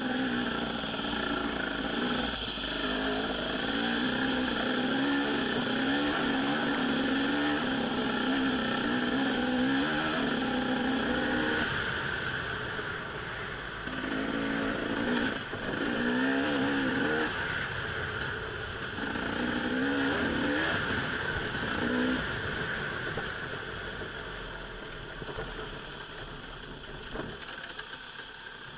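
Dirt bike engine riding a trail under constantly changing throttle, its note rising and falling. It eases off a few times, about 12, 17 and 22 seconds in, and is quieter and lower toward the end. A steady high hiss runs behind it.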